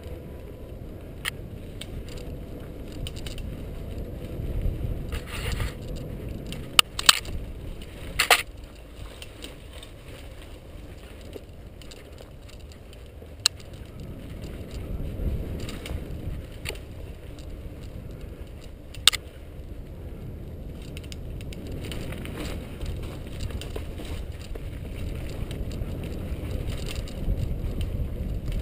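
Mountain bike riding down a dry dirt single-track: a steady rumble of the tyres over the trail, broken by sharp clacks and rattles from the bike jolting over bumps, several close together about seven to eight seconds in and another near nineteen seconds.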